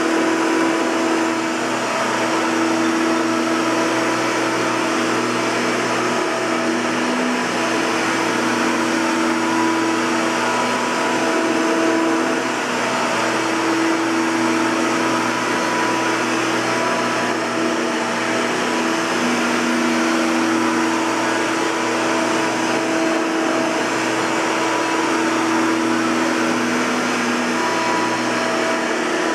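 Hoover Caddy Vac Elite (U5131-900) bagged upright vacuum cleaner running steadily, its motor tone dipping and rising a little every few seconds.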